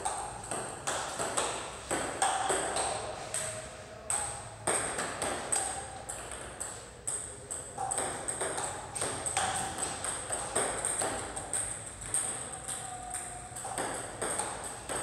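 Table tennis ball on practice serves: sharp hollow clicks of the ball off the bat and bouncing on the table, about one or two a second throughout.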